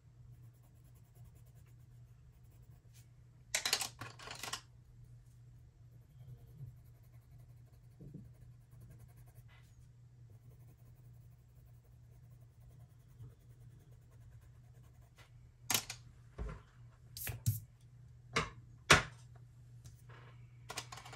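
Colored pencils clicking and knocking against the desk as one pencil is put down and another picked up, several sharp knocks close together near the end. A brief rustle about four seconds in, over a steady low hum.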